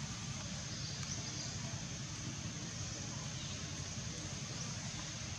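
Steady outdoor background noise, an even hiss and low rumble with no distinct event standing out.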